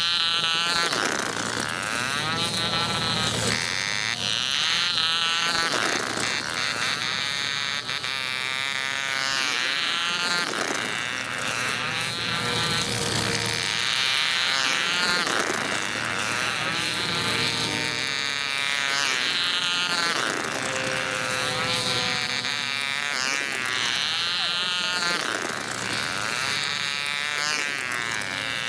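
Small internal-combustion model engine of a 1950s-style IC rail car buzzing at high pitch as the car laps the rail track. Its pitch rises and falls each time it passes, about every two and a half seconds.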